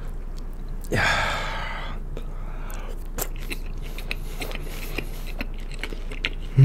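Close-miked chewing of sauced boneless Korean fried chicken with the mouth closed: faint wet clicks and smacks, scattered and irregular.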